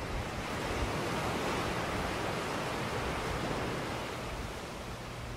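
Steady rushing noise aboard a solar-powered narrowboat under way, swelling about a second in and easing after about four seconds, over a faint low hum.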